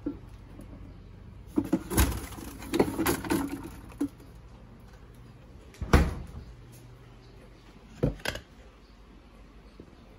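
Refrigerator and kitchen handling sounds over a low steady hum: knocks and rustling as things are moved in the fridge, a loud thud of the fridge door shutting about six seconds in, then a milk carton set down with two quick knocks about eight seconds in.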